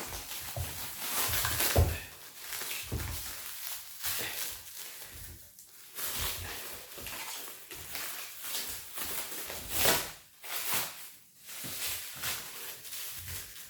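Irregular rustling, scraping and knocks of parts and packing being pulled out of a cardboard box by hand, with a few louder bumps, one about ten seconds in.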